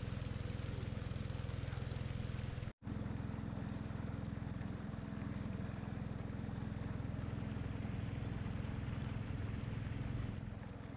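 Longboat's motor running steadily under way, with a brief dropout about three seconds in.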